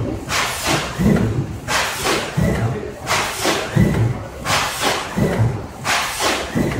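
Sheet-fed industrial press running, its cycle repeating about every second and a half: each time a low thump with a hissing rush of air.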